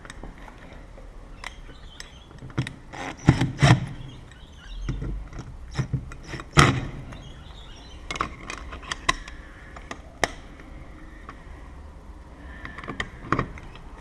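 Irregular metallic clicks and knocks of door-lock hardware and tools being handled, the loudest knocks a few seconds in and again about halfway.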